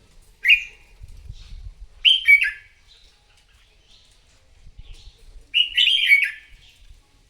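Red-whiskered bulbul singing three short, loud, choppy phrases: about half a second in, at about two seconds, and near the end. Fainter chirps come between the phrases.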